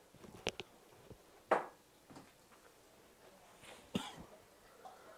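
Quiet kitchen handling sounds: a few light clicks about half a second in, a short noisy burst about a second and a half in, and a knock about four seconds in as chopped tomatoes are tipped from a metal bowl into a frying pan.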